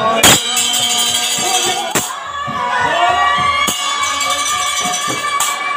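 Harinam sankirtan devotional music: a sustained melody over jingling hand percussion, with a sharp strike about every 1.7 seconds.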